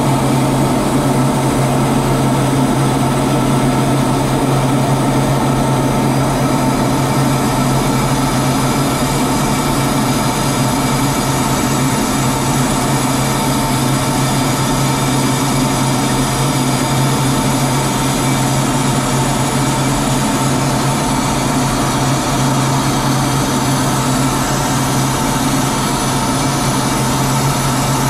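Steady engine and airflow drone inside the cockpit of an aircraft in flight, with a strong constant low hum and no change in pitch or level.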